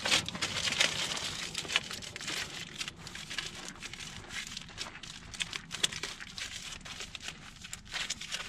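Heavy-duty aluminum foil crinkling with quick, irregular crackles as it is folded and crimped tightly around the ends of a banana parcel.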